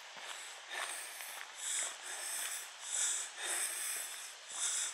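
A person breathing close to the microphone: short, hissing breaths about one a second over a faint steady hiss.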